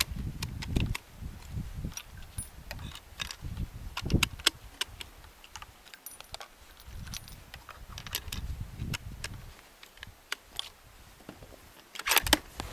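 Light metallic clicks and handling noises from a bolt-action rifle, with gusts of wind rumbling on the microphone. Near the end comes a quick cluster of louder clicks as the rifle's bolt is worked.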